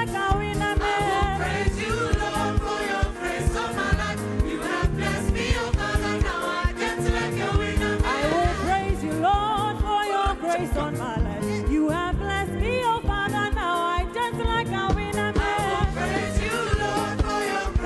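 Gospel praise music: a choir singing over a band with a steady beat.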